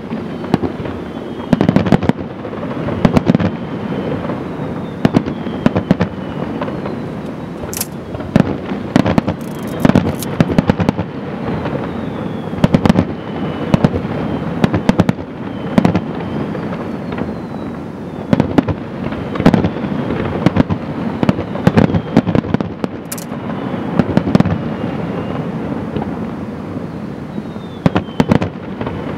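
Aerial fireworks shells launching and bursting in quick, irregular succession: repeated sharp bangs over a steady rumble of further, fainter reports, with faint whistles between them.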